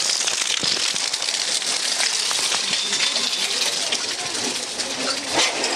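Heavy rain, with rainwater from a drainpipe splashing onto the pavement: a steady hiss of falling water dotted with small patters.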